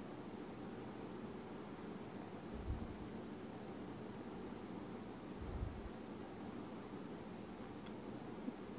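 A cricket trilling: a high, quickly pulsing, even chirr that goes on unchanged. Two faint low thumps come about a third and two-thirds of the way through.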